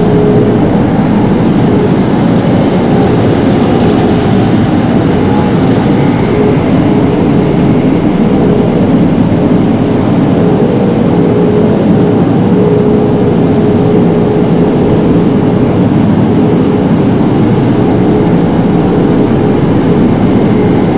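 Heavy farm machinery running steadily under load: a diesel engine droning, with a steady tone held through it.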